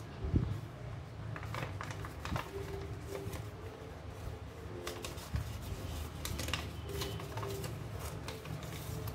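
Origami paper rustling and crinkling in short irregular crackles as hands unfold it and fold and crease it, with one dull thump about half a second in, over a steady low hum.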